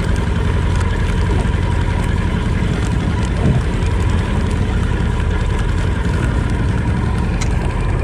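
Boat engine running steadily, a low rumble with a constant hum.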